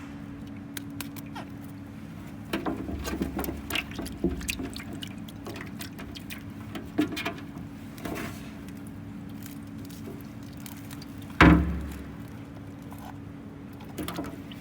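Handling noises: scattered clicks and rustling, busiest a few seconds in, with one loud knock about eleven seconds in, all over a steady low hum.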